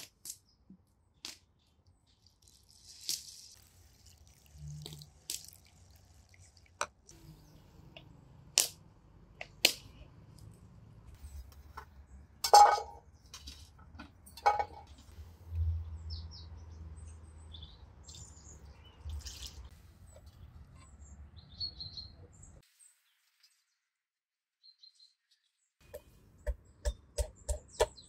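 Scattered clicks and knocks of hands-on cooking work, with occasional bird chirps. Near the end a knife starts chopping on a board in quick, even strokes, about three or four a second.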